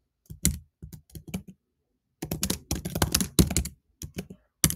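Typing on a computer keyboard: a few separate keystrokes, then a quick run of keystrokes about two seconds in, and a few more near the end.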